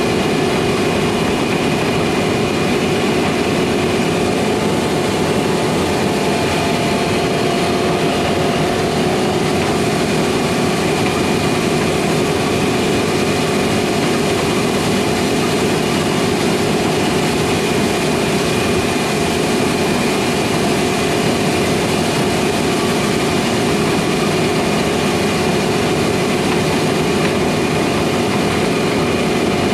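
Heavy diesel harvest machinery running steadily: a constant engine noise with a few steady tones held throughout.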